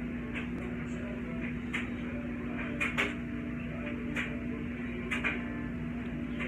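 Scattered light clicks and taps, about one or two a second, over a steady low hum.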